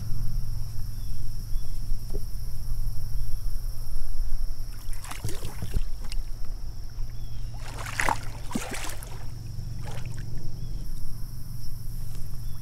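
Water splashing and sloshing beside a kayak, in two bursts about five and eight seconds in, over a steady low rumble.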